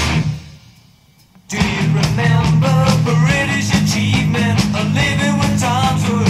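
Hard rock band recording: the band stops dead about half a second in, leaving a second or so of near silence, then electric guitars, drums and a lead vocal crash back in together at full volume.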